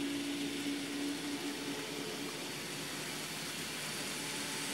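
Model trains running on a layout: a steady whirring hiss of wheels on the track and locomotive motors, with a low hum that fades out in the first couple of seconds.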